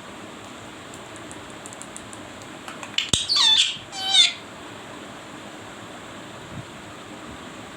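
Pet parrot giving two harsh calls, a longer one about three seconds in and a shorter one about a second later.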